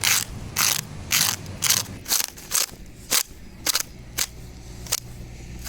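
A hand tool being worked with short, sharp rasping clicks, roughly two a second and a little more spaced out toward the end. A low steady hum comes in about halfway.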